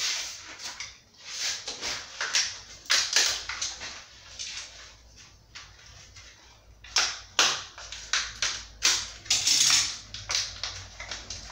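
Irregular crackling and clicking of plastic from hands working a tube of white silicone sealant and its packaging, with a quieter pause in the middle.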